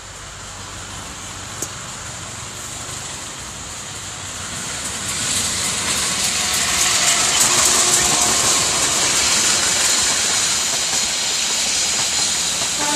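Diesel-electric passenger train approaching and passing close by. The locomotive's engine and wheel noise grow steadily louder and are loudest as it goes past about seven seconds in. The coaches follow with a steady rush of wheels on the rails and a high hiss.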